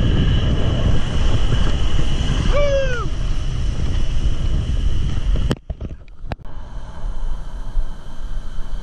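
Strong wind buffeting the camera microphone over breaking surf and water washing up the beach. A short falling cry comes about three seconds in, and past the middle the noise cuts out abruptly for about a second with a few clicks.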